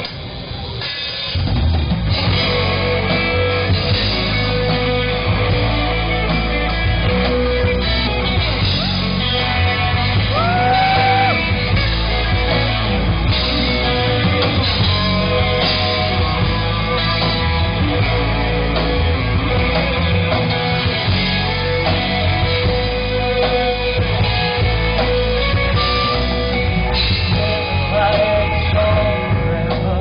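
Rock band playing live: electric guitars, bass and drum kit with a sung vocal. The full band comes in about a second and a half in and plays on steadily.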